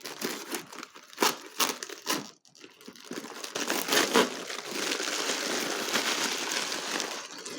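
Packing paper being crumpled and pulled off a wrapped crystal: a few sharp crackles in the first two seconds, then continuous rustling.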